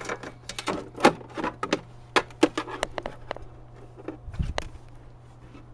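Irregular clicks, taps and rattles of hand work as the zip-tied old battery cable is worked free on a lawn tractor, with a duller low thump about four seconds in.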